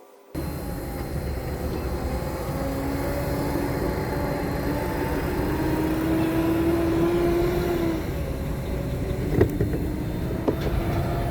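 Vehicle engine running steadily, cutting in abruptly, with a low hum that drifts slowly up and then back down. Two sharp clicks come near the end.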